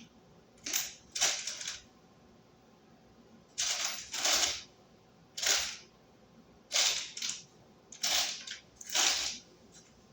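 Handling noise from work at a wall outlet box: about eight short scrapes, each under half a second, coming at irregular intervals.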